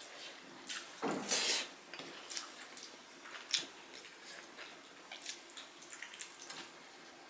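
Close-miked eating by hand: fingers squelching through rice and curry, and wet smacking chewing, in many short sounds. A louder wet slurping noise comes about a second in.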